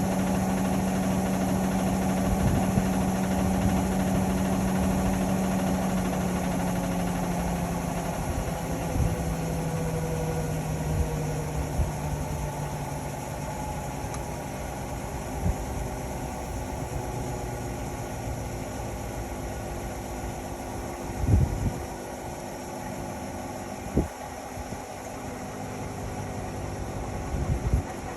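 Indesit Innex XWA 81252 washing machine winding down from its spin: the motor's hum slowly drops in pitch and fades over the first half as the drum slows. A few knocks follow in the second half, the loudest about two-thirds of the way in.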